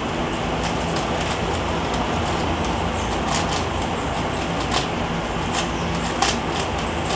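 Eastsheen 5x5 puzzle cube being turned quickly by hand, its layers giving scattered plastic clicks and clacks over a steady rumbling background noise. The sharpest clacks come near the end.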